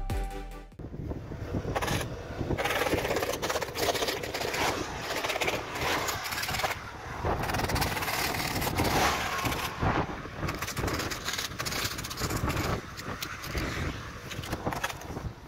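Wind buffeting a car-mounted camera's microphone over the tyre and road noise of a car driving at speed on a wet, snowy highway. A piece of electronic music cuts off abruptly just under a second in.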